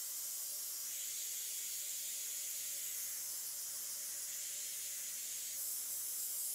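Airbrush spraying paint, a steady hiss of air that grows a little brighter about five seconds in, with a faint hum underneath.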